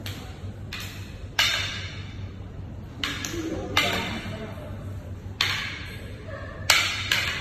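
Eskrima sticks clacking together in a Balintawak drill: about six or seven sharp strikes and blocks at uneven intervals of roughly a second, each with a brief ringing tail, over a low steady hum.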